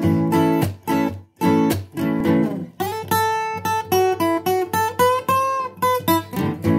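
Acoustic guitar played as an instrumental intro: strummed chords in a steady rhythm, then from about three seconds in a higher melody of single notes, some sliding in pitch, over a held lower note, with strumming again near the end.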